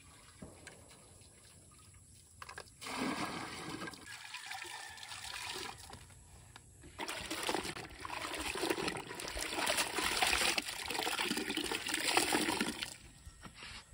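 Soapy water splashing and streaming into a plastic basin as clothes are hand-washed and wrung out. Quiet at first, with splashing starting about three seconds in and heaviest in the second half.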